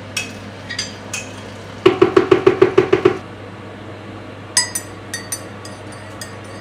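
Metal teaspoon stirring a drink in a ceramic mug and clinking against its sides. A few single clinks come first, then a quick run of about ten clinks, then a few scattered taps, each ringing briefly over a steady hum.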